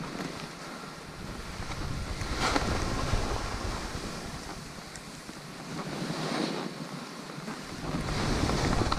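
Skis hissing through soft powder snow, mixed with wind rushing over the microphone as the skier moves. The hiss rises and falls, with three louder swells.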